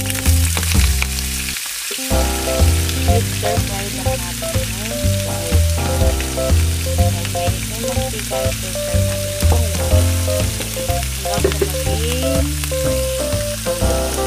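Chopped milkfish (bangus) pieces sizzling steadily as they fry in a hot pan. Background music with a bass line and melody plays throughout.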